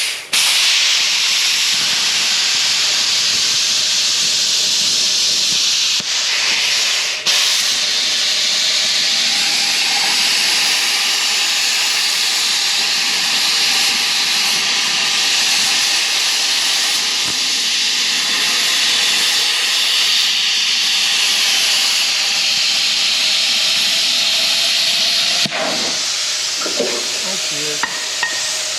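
Cutting torch hissing steadily as it cuts away steel from the end of a dozer blade, with a brief break about seven seconds in and easing off near the end.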